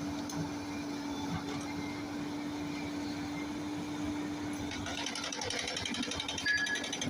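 Heavy machinery running with a steady hum; about five seconds in the hum fades and a fast, even mechanical rattling starts, typical of a rock-breaking hammer at work on stone.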